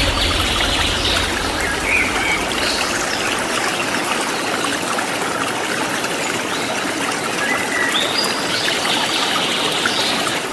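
Waterfall water running as a steady, even rush, with birds giving short chirps over it about two to three seconds in and again near the end.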